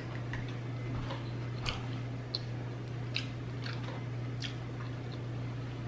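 Close-miked chewing of pizza: soft, scattered wet mouth clicks over a steady low hum.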